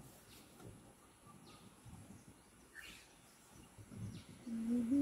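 Quiet outdoor background with a few faint, short bird chirps. Near the end a steady low hum at one pitch starts, like a person humming, and is the loudest sound.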